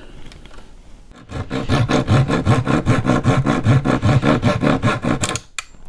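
Metal file rasping across the end of a thin wooden moulding strip in rapid, even strokes, about ten a second, starting about a second in and stopping shortly before the end; the strip is being filed down to a mitre angle. A single sharp click follows just after the filing stops.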